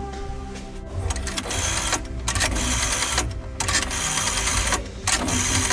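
A rapid mechanical rattle in bursts of about a second each, separated by short gaps, over background music.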